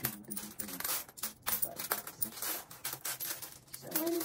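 Loose coins clinking against each other and on a tabletop as they are picked from a pile and stacked by hand: many quick, irregular clicks.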